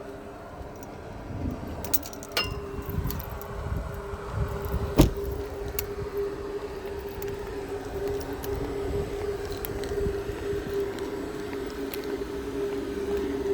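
A steady hum, like a motor or engine running, with irregular footstep-like thuds, a few clicks and one sharp knock about five seconds in.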